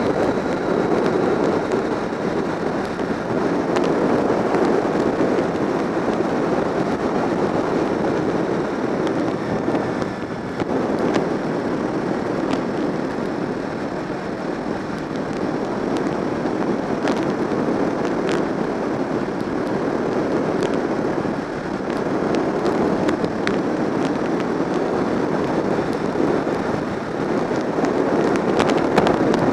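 Wind rushing and buffeting over the microphone of a camera mounted on a motorcycle riding at road speed: a dense, steady noise with occasional crackles.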